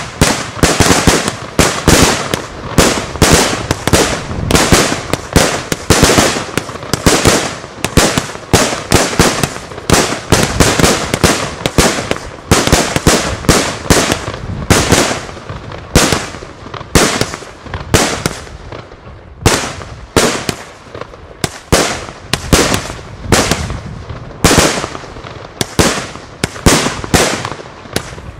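Funke Iskra Blitz Rums 100-shot salute battery firing a long, rapid string of loud, sharp bangs, about two to three a second.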